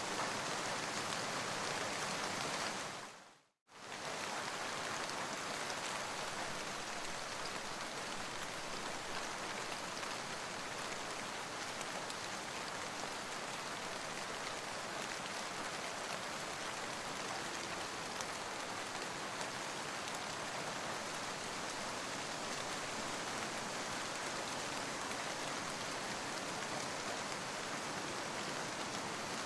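Steady rain falling, an even hiss of rain on surfaces. About three seconds in it fades out to silence for a moment, then comes straight back.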